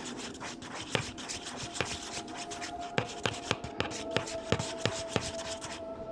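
Slime mixture with lotion being stirred in a bowl: the utensil scrapes and clicks irregularly against the bowl. A faint steady tone runs underneath from about a second and a half in.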